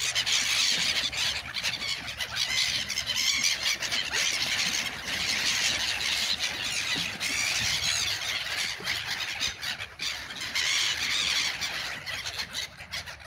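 A large flock of black-headed gulls calling together, a dense, continuous chorus of overlapping high squealing cries as they crowd in to be fed.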